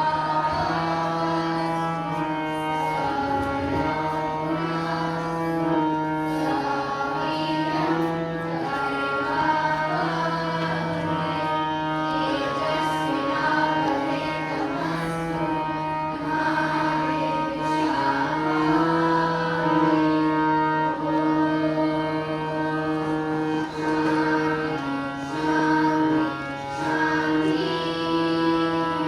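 Music in an Indian classical style, with long held notes that move in steps from one pitch to the next.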